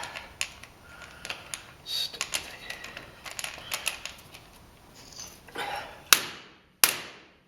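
Small metallic clicks and scrapes of a screwdriver working at a jammed ignition lock cylinder in its pot-metal housing, then two sharp strikes on it near the end.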